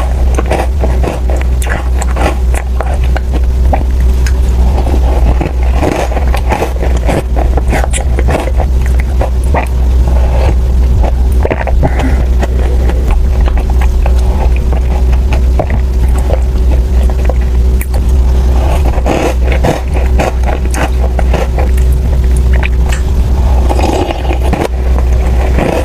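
Close-miked eating: irregular crunching, biting and chewing of dessert, over a steady low hum.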